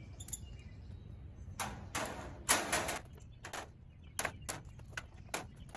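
Small steel bar clamps being released from a wooden handle and set down on a steel-mesh trailer deck: a few short scraping rattles, the loudest about two and a half seconds in, then a run of sharp clicks and clanks.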